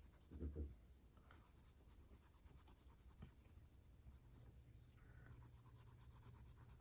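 Faint scratching of a Prismacolor colored pencil shading on paper with light pressure, with a brief low thump about half a second in.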